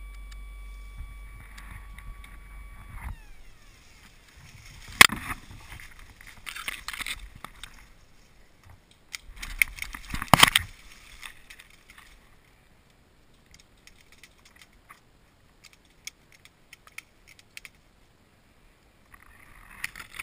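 Dry reeds and undergrowth rustling and crackling as a person pushes and crawls through them, with two sharp knocks, about five and ten seconds in, and scattered light ticks. A steady high whine cuts off about three seconds in.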